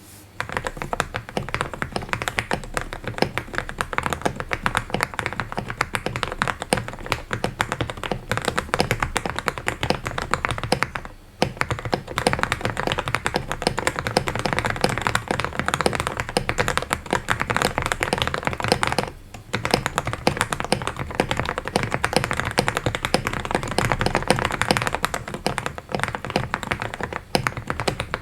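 Ikki68 Aurora mechanical keyboard with stock Akko Jelly Pink linear switches being typed on quickly and continuously, with two short pauses about eleven and nineteen seconds in.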